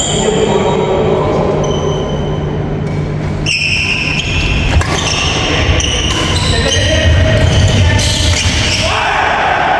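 Badminton doubles rally on a wooden indoor court: sneakers squeak in short, high chirps as the players lunge and turn, and rackets smack the shuttlecock back and forth.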